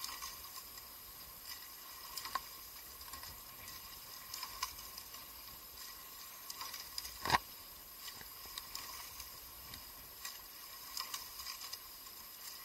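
Rowing eight under way: a steady hiss with a sharp knock of the oars in their gates roughly every two seconds, once per stroke. The loudest knock comes about seven seconds in.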